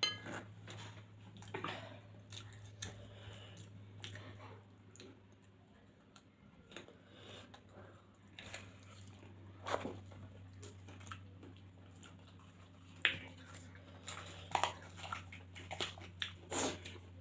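Close-miked chewing of a mouthful of soft homemade flat noodles: quiet, wet mouth sounds and many small clicks over a faint, steady low hum. Near the end come a few sharper clicks and taps.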